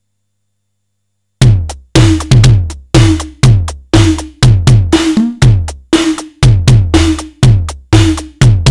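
Simmons SDS7 hybrid analog-digital drum module playing a fast electronic drum pattern that starts about a second and a half in. It mixes deep kick hits that drop quickly in pitch with higher, tuned ringing drum hits, all with a short reverb.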